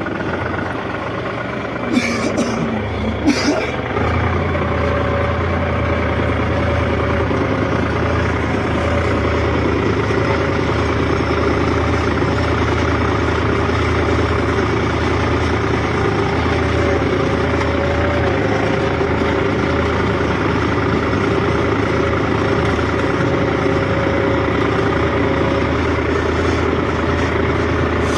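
New Holland 55-56 tractor engine running steadily while plowing, with a low hum. A few sharp knocks come about two to three and a half seconds in, after which the engine runs slightly louder.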